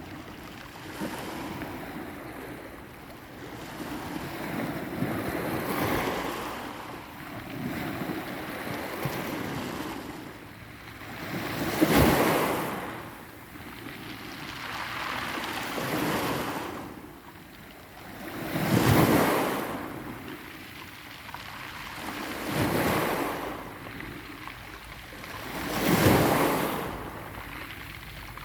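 Sea waves breaking on the shore and washing back, surging and fading every few seconds, with three larger waves clearly louder than the rest.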